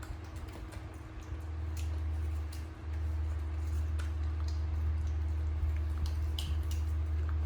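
Pets chewing Indian jujube fruit: scattered small crunches and clicks, a few sharper ones in the second half, over a steady low hum.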